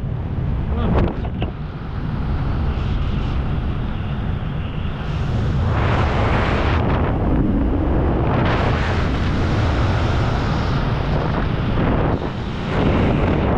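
Heavy wind rushing and buffeting against the microphone in the air, a steady roar that swells in gusts.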